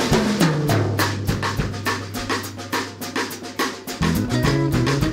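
Background music with a steady drum beat over a bass line; the bass grows busier about four seconds in.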